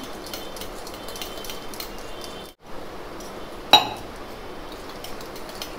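A fork whisking a thick spice paste in a small stainless-steel bowl: quick scraping and light clinking of metal on metal, with one sharp, louder clink a little over halfway through.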